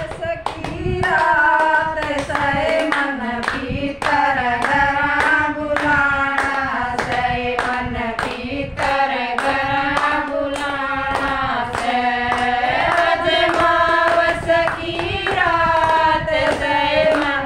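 Women singing a devotional bhajan (a pitru bhajan to the ancestors), keeping time with steady hand-clapping.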